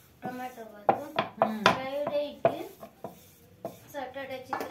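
Wooden rolling pin working chapati dough on a wooden board, with several sharp wooden knocks and taps as the pin strikes and is set against the board.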